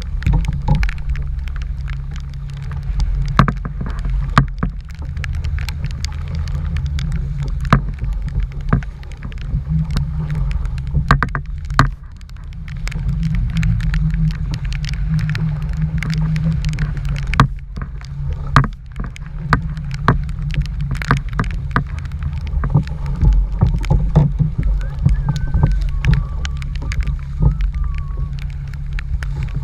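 Strong gusting wind buffeting the microphone: a heavy low rumble that swells and drops in gusts, with many sharp knocks and taps throughout.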